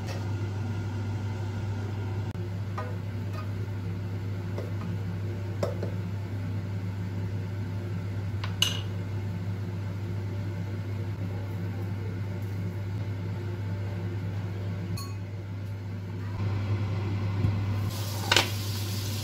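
A steady low hum with a few light clinks of a spatula against a stainless-steel mesh colander as cooked chicken is pulled apart. Near the end there is a sharper click, then butter starts sizzling in a frying pan.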